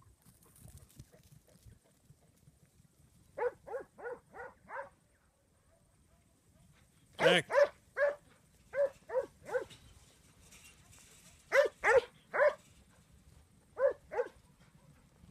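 A young Huntaway sheepdog barking in four bursts of two to seven barks each, the working bark it uses to drive a mob of sheep.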